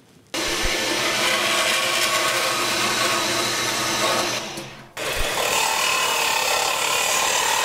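A metal-cutting band saw running and cutting through a metal tube. About five seconds in it stops and a belt-and-disc sander takes over, grinding a small metal piece against the disc with a steady tone.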